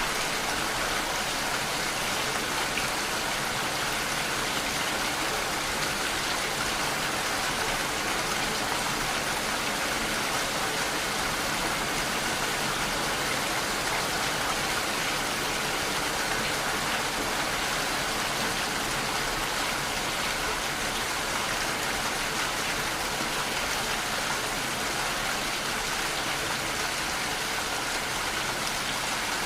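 Steady rain: a continuous, even hiss of falling water with no single drop or event standing out.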